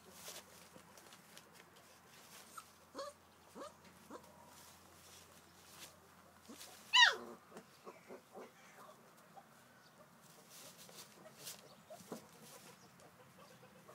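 Newspaper rustling and crinkling as a Maremma sheepdog puppy roots through it. A few short animal calls fall in pitch, and a louder call about seven seconds in drops steeply.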